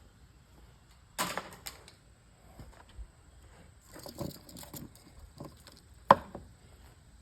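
Scattered knocks and clatter of tools and parts while an old television set is being taken apart for scrap: a brief scraping rattle about a second in, a run of small knocks around four to five seconds, and one sharp knock about six seconds in, the loudest.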